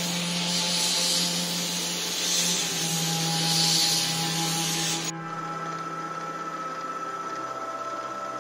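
Belt grinder's abrasive belt grinding a small hand-held metal part, a steady hiss over the motor's hum that swells with each of three passes. About five seconds in it gives way abruptly to a milling machine's small end mill cutting a thin metal plate, a steadier and quieter whine.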